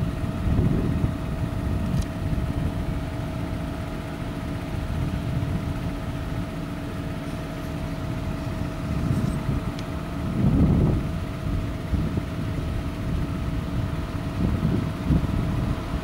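Claas Lexion combine harvesters running while harvesting corn: a steady engine drone with a constant whine over it, swelling briefly about ten seconds in.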